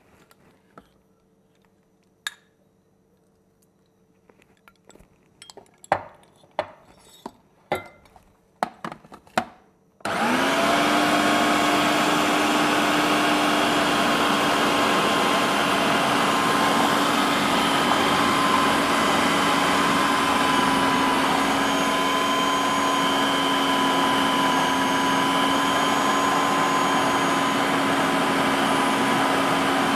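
A few light clinks and knocks as water is spooned into a Black+Decker food processor, then, about a third of the way in, its motor switches on and runs steadily with an even whine, mixing pastry dough.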